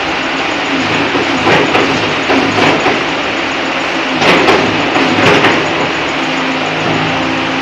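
Underground mining loader's (LHD scooptram's) diesel engine running steadily, with several loud clanks spread through it.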